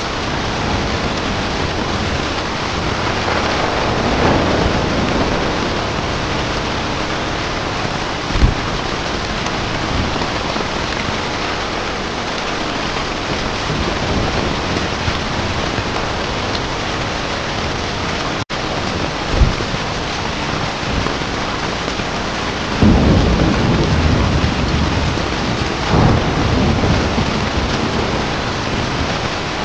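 Steady heavy rain with rolls of thunder: a low rumble about four seconds in and a longer one in the last several seconds, plus two short low thumps. A split-second gap cuts the sound near the middle.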